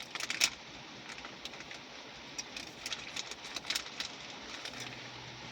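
Scattered sharp clicks and crackles over a steady hiss, a quick cluster just after the start and more about halfway through.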